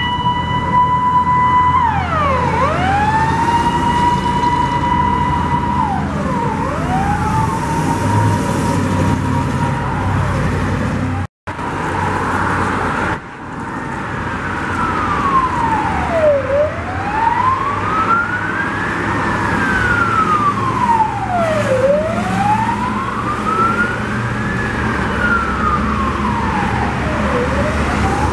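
Fire truck sirens on an emergency run. First one siren repeatedly sweeps up, holds a steady tone for about two seconds and drops. After a brief break partway through, a slow wail rises and falls about every five seconds. Truck engines and road traffic run underneath.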